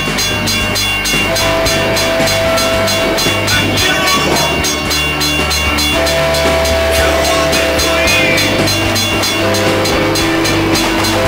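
Background music with a steady beat and long held notes.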